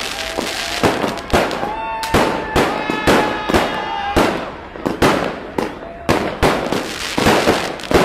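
Fireworks and firecrackers going off in rapid succession: loud, sharp bangs about one to two a second, with crackling in between.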